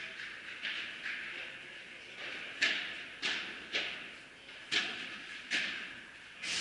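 Padel ball being struck by rackets and bouncing during a rally: a run of sharp pocks, about six strong ones in the second half with fainter ones before, each echoing briefly in the hall.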